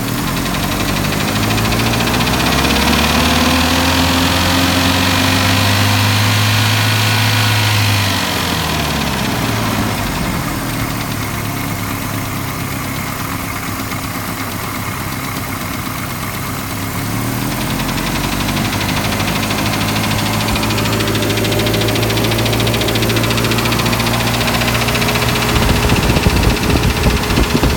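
Warmed-up Nissan Z24 2.4-litre four-cylinder engine, valves freshly adjusted to cure a ticking noise, brought up to a raised speed and held, dropped back to idle about eight seconds in, then raised and held again. A burst of louder knocks comes near the end.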